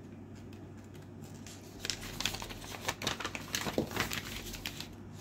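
Paper rustling and crinkling as a folded paper instruction manual is opened out and its pages handled, starting about two seconds in.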